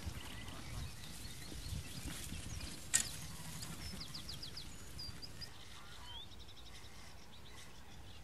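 Small songbirds chirping in quick, repeated high trills over a low rumble of wind or microphone noise. One sharp click about three seconds in is the loudest sound.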